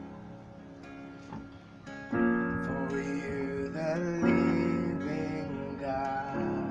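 Acoustic guitar and Yamaha electronic keyboard playing soft, sustained chords. About two seconds in, a louder chord is struck and singing voices come in over the instruments.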